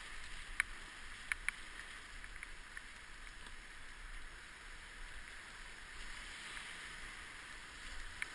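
Whitewater rapids rushing around an inflatable raft as the crew paddles hard, a steady hiss of water. A few sharp knocks, about three, come in the first two seconds.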